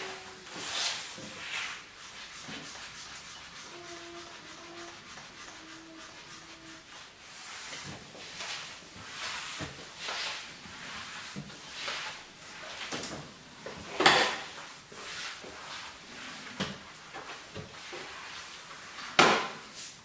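Wet mop being pushed back and forth over a tiled floor: a run of rubbing swishes, roughly one a second, with two louder strokes, one midway and one near the end.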